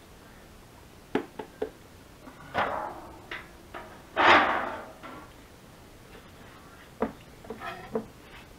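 Kitchen handling noises: a few light knocks, then two crinkly rustling bursts about two and a half and four seconds in, the second louder, as a disposable aluminium foil pan is moved away. Near the end come more knocks as a bell pepper is set down on a plastic cutting board.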